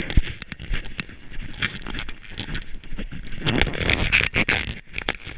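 Running footsteps crunching and scuffing on packed snow, an irregular patter of short, sharp steps and knocks, busiest about three and a half seconds in.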